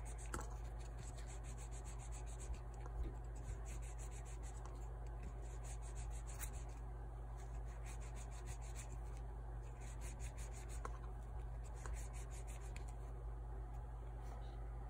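A toothbrush wrapped in a rag scrubbing a door lock cover by hand to polish it: quick, fine back-and-forth rubbing strokes in spurts with short pauses, over a steady low hum.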